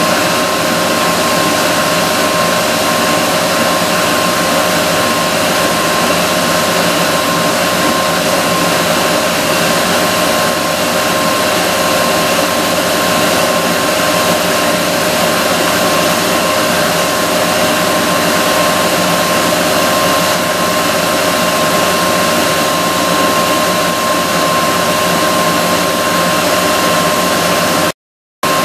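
Northwood Model 138EDS three-axis CNC stone machining center running: a steady loud hiss with a steady high whine, its cutting head spraying water. The sound cuts out for a moment near the end.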